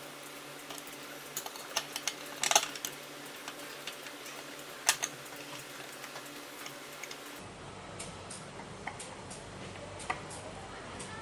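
Scattered sharp metallic clicks and taps: a quick cluster about two seconds in and a single sharp click near five seconds. After a sudden change to a low hum, fainter ticks follow.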